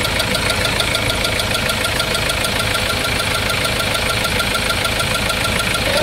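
Common-rail diesel engine idling with a rapid, even knocking.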